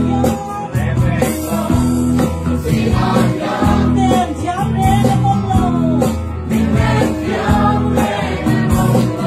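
A group of voices singing a Mizo song over instrumental accompaniment.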